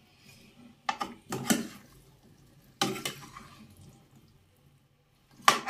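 Metal spatula scraping and knocking against a kadhai while pumpkin pieces are stirred, about four separate strokes with quiet gaps between.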